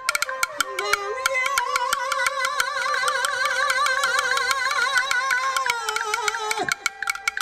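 A man sings a long, held note with a wide vibrato in Chinese opera style over an amplified microphone. Rapid strikes from a traditional Chinese percussion set of small drums, clapper and cymbals run underneath. The note falls off and stops near the end.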